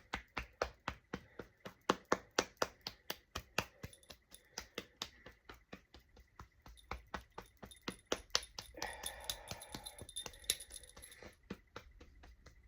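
Hand tapping along the arm and shoulder in qigong self-massage: steady, even pats at about four a second, thinning out briefly in the middle before picking up again.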